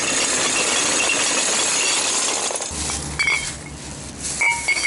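Plastic garbage bag rustling loudly as recyclables are handled, then, about three seconds in, glass bottles clinking against each other with short ringing tones, again near the end.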